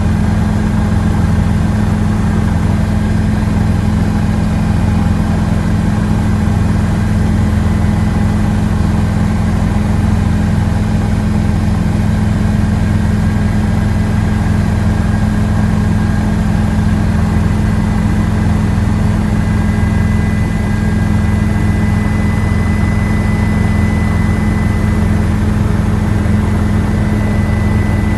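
Helicopter heard from inside the cabin in flight: a steady, loud drone of rotor and turbine engine, with a thin high whine over it that grows stronger about two-thirds of the way through.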